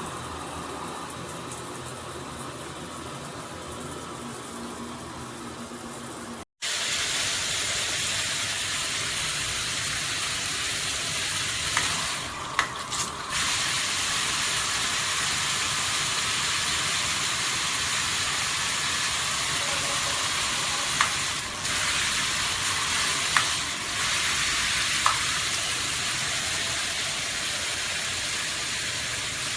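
Water spraying steadily from a 2-in-1 rain and handheld shower head, a dense hiss of spray. About six seconds in it cuts out for an instant and comes back louder, and a few brief clicks and short dips break it later on.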